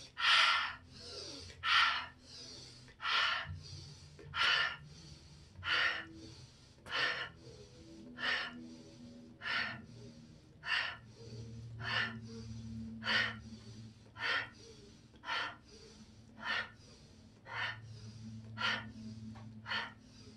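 A woman's forceful rhythmic breathing during a quick kundalini-style breathing exercise: about seventeen sharp breaths, one roughly every second and a bit, coming slightly faster toward the end.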